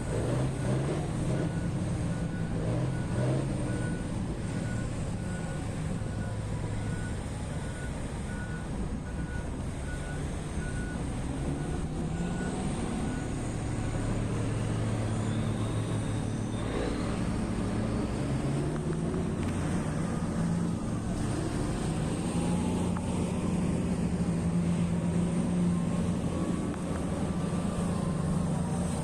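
Heavy mining machinery's diesel engines running and changing speed, the pitch rising and falling. For about the first half a reverse alarm beeps steadily, roughly one and a half beeps a second.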